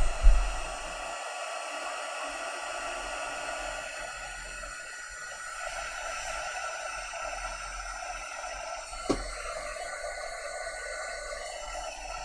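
Handheld craft heat tool blowing steadily, drying freshly applied chalk paste on the paper. There is a short knock as it begins and a single sharp click about nine seconds in.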